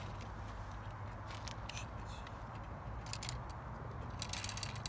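Scattered light clicks and scrapes from fishing line and a tip-up's spool being handled at the ice hole, over a steady low hum.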